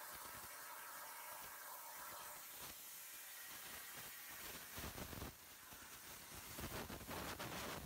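Hypertherm Powermax85 plasma arc hissing steadily as the CNC torch edge-starts at 85 amps on 3/4-inch steel plate. From about five seconds in, a rougher, louder rumble joins the hiss.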